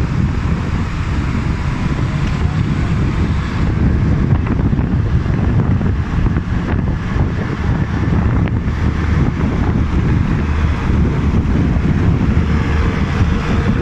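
Wind buffeting the phone's microphone over the steady rumble of a car driving along a road in traffic.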